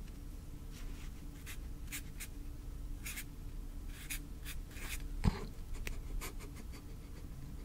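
Writing on paper: short scratchy pen strokes at irregular intervals, with a single thump about five seconds in, over a faint steady hum.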